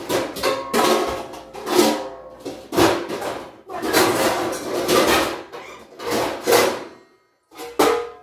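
Kitchen pots, pans and lids clattering and clanking as they are handled and stacked in a lower cabinet: a quick run of a dozen or so knocks, each ringing briefly, with a pause near the end.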